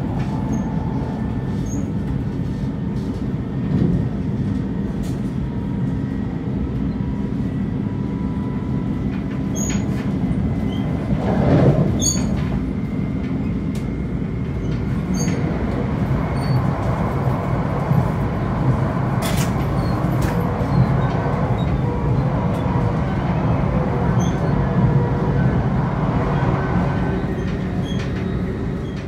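E3 series 1000 Shinkansen running at speed, heard inside the passenger car: a steady rumble of wheels on rail, with a faint steady whine from its Hitachi IGBT VVVF inverter and traction motors. There are scattered light clicks, and a brief louder rush about twelve seconds in.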